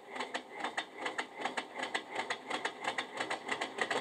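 Recorded Class 37 diesel cold start played by a DCC sound decoder through the model locomotive's small speaker. The English Electric engine turns over and fires with uneven beats at about five a second.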